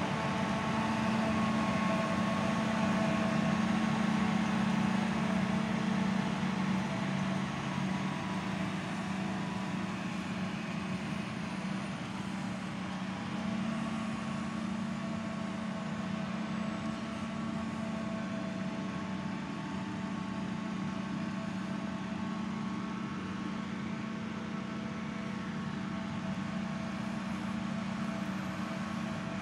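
John Deere self-propelled forage harvester running steadily while it harvests maize for silage: a continuous engine drone with a held hum, a little quieter after about seven seconds.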